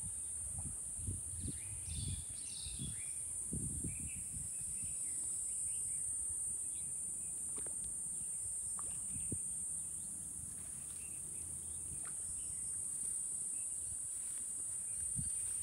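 Steady high-pitched drone of an insect chorus, with scattered short bird chirps over it. A few low thumps come in the first few seconds.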